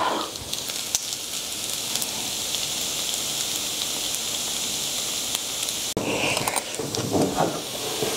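Chadol fried rice sizzling and crackling in a hot stone pot on a tabletop burner as the rice crusts into crispy nurungji on the bottom. After about six seconds the sound changes, with spoon scrapes and clicks against the pot over the sizzle.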